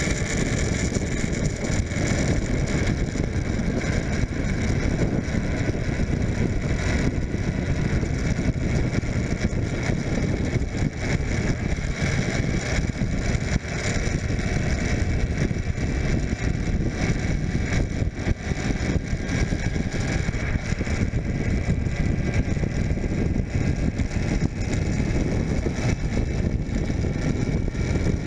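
Suzuki GSF600 Bandit's inline-four engine running steadily while riding along, heard through wind and road noise buffeting the bike-mounted microphone.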